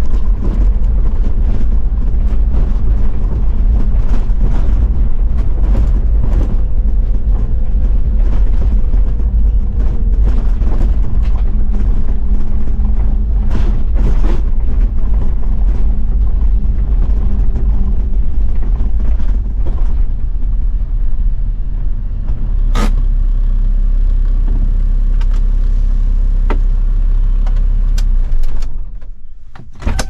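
Toyota Land Cruiser 70's 1HZ inline-six diesel running as it is driven over a dirt forest road, with frequent short knocks and rattles from the body over the rough surface. Later it settles into a steadier run, and near the end the loudness falls away.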